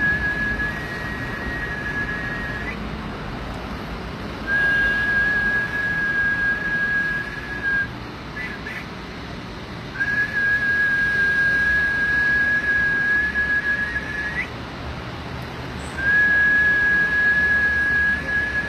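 Long, steady high-pitched whistled notes, each held for three to four seconds with a short pause between, four in all, each ending with a slight upward flick in pitch. A low rumble runs underneath.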